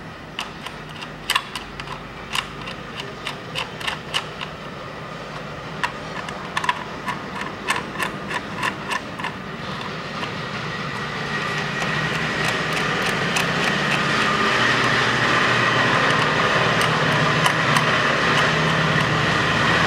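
Quick, irregular metallic clinks of a 10 mm socket and extension as ignition-coil bolts are threaded in by hand. About halfway through, a steady rushing noise swells and becomes the loudest sound.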